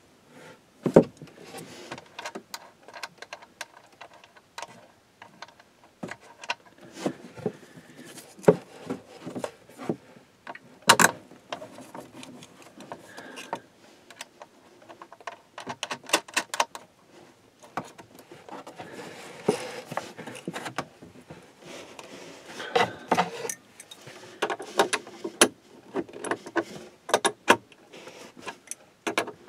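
Irregular metallic clinks, taps and small knocks of a wrench and cable lugs on the battery-terminal bolts of 6-volt golf cart batteries as the cables are fastened down. The loudest knock comes about eleven seconds in.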